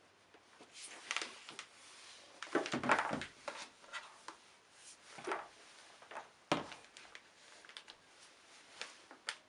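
Handling noises as the unboxed items are moved about on a hard surface: rustling and light clicks, with a cluster of heavier knocks and thuds about three seconds in and another sharp knock about six and a half seconds in.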